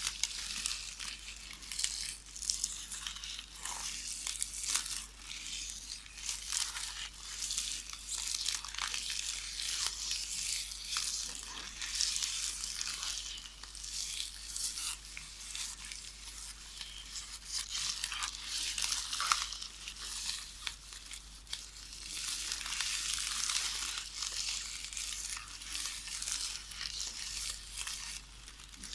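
Magnetic VHS videotape ribbon rustling and crackling as it is knitted by hand: a continuous crinkle made of many small crisp ticks, with a few louder crackles along the way.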